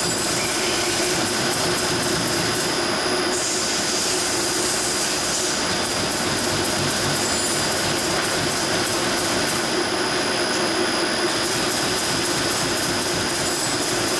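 Multi-spindle drilling machine running, several drills cutting into a plate under flood coolant: a steady mechanical whir with a constant high whine.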